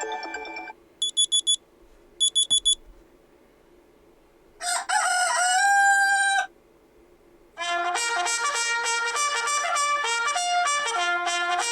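Huawei Honor Play 7's built-in alarm tones played one after another through the phone's speaker. A chiming melody fades out, then two groups of four quick electronic beeps, a recorded rooster crow of about two seconds, and from about two-thirds of the way in a fast melody of many quick notes.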